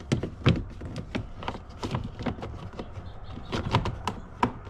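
Plastic interior door trim panel of a Ram 1500 being pressed onto the door, its retaining clips snapping into place: a run of sharp clicks and knocks, the loudest about half a second in and several more close together near the end.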